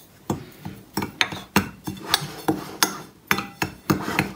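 Metal spoon repeatedly clinking and scraping against a glass plate, about three taps a second, as dry ground spice powders are stirred together.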